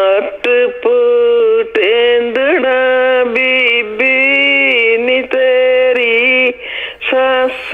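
Unaccompanied Punjabi folk singing by a caller, heard over a phone line: one voice holding long, wavering notes in phrases with short breaks between them, cut off above about 4 kHz.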